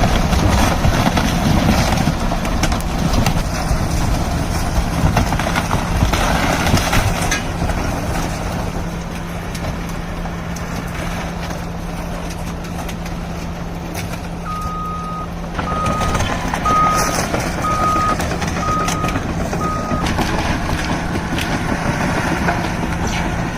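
Caterpillar bulldozer's diesel engine running under load with a steady hum and clattering, busiest in the first several seconds. About two-thirds of the way through, a backup alarm beeps six times, about once a second, as the machine reverses.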